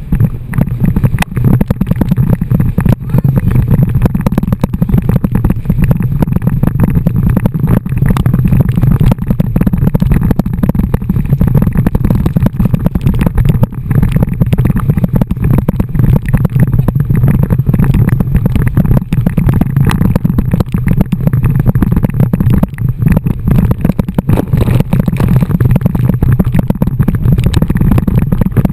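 Wind buffeting an action camera's microphone and water rushing under a bumper tube being towed at speed: a loud, steady, deep rush.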